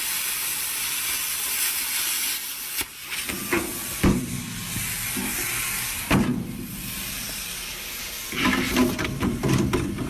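Plasma cutter hissing steadily as it cuts through a dump body floor, stopping about three seconds in. After that comes quieter hissing broken by a few sharp knocks, and a busier run of knocks near the end.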